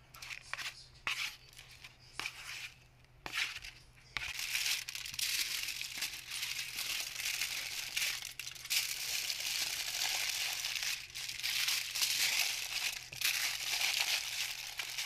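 Aluminium foil being folded and crimped by hand into a packet, crinkling continuously from about four seconds in. Before that, a few short scrapes and taps.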